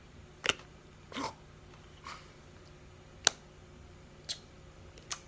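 A series of about six short, sharp clicks or pops, unevenly spaced, the loudest about three seconds in.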